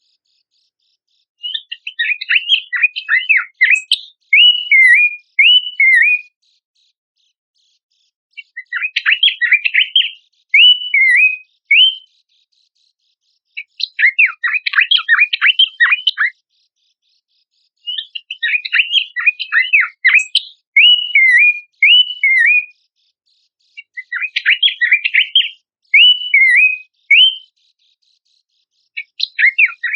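Pelanduk semak babbler song, as in a bird-keepers' lure recording. The same phrase repeats about every five to six seconds, five times over and starting a sixth near the end: a quick burst of chattering notes followed by three or four short slurred whistles.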